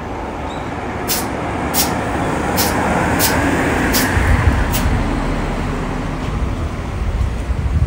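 Road traffic: a vehicle passing, its noise swelling to a peak about four seconds in and then fading. A run of six short high ticks about every 0.7 seconds comes in the first five seconds.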